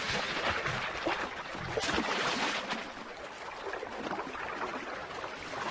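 Elephants splashing and sloshing about in river water, with louder splashes about two seconds in and quieter water after that.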